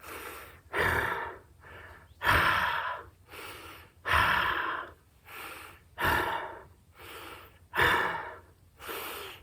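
A man breathing hard from doing burpees: a loud, forceful exhale about every two seconds, each followed by a quieter breath, in a steady rhythm.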